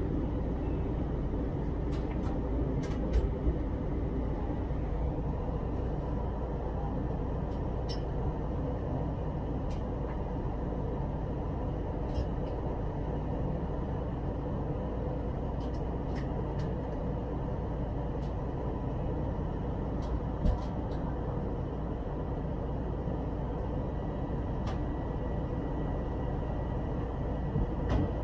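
Steady cabin noise of an Airbus A320 airliner in descent, the engine and airflow noise as heard from a window seat over the wing. A few light clicks and short knocks break through it.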